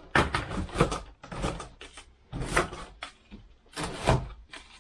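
Cardboard end stops being pulled and worked off the ends of a plastic-wrapped telescopic pole: a string of irregular cardboard scrapes and knocks.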